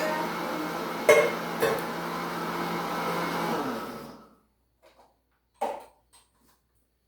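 Electric kitchen blender running, likely blending a pineapple mixture for geladinho, with a couple of knocks about a second in. It is switched off about four seconds in and winds down. A single clunk follows near the end.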